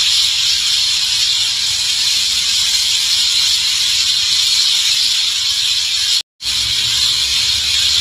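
Dense, continuous chatter of a large flock of birds roosting together in one tree, many calls overlapping into a steady high hiss. The sound cuts out for a moment about six seconds in.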